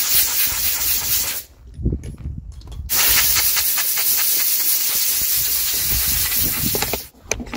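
Compressed air from an air-hose blow gun blasting dust out of a tractor's air filter element: a loud hiss that breaks off for about a second and a half, then runs again and cuts off sharply near the end.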